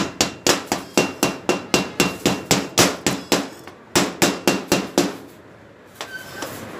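Quick repeated hammer strikes, about four a second, knocking the slag off a fresh stick weld on thin steel tube, with a faint metallic ring. A run of about fourteen blows, a brief pause, then about five more.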